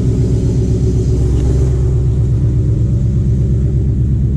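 Ford Mustang GT's 5.0-litre V8 running steadily at low revs as the car moves off at low speed.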